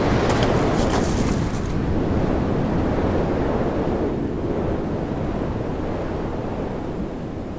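A loud, steady rushing noise, with a short crackle about half a second in, slowly fading toward the end.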